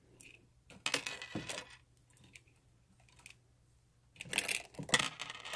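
Metallic clinks and rattles from a small red metal tin being handled. They come in two short clusters, one about a second in and another near the end.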